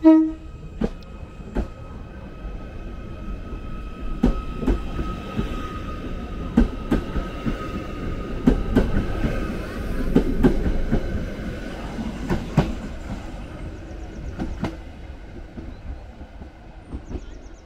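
Electric train running on rails, its wheels clicking sharply over rail joints at irregular intervals, with a low rumble and a steady high whine. There is a sharp knock at the start.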